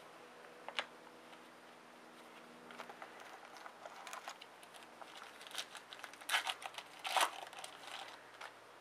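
Foil wrapper of a 2010 Topps UFC trading-card pack crinkling as it is handled and torn open, in scattered crackly bursts that are loudest about six and seven seconds in, after a single sharp click near the start.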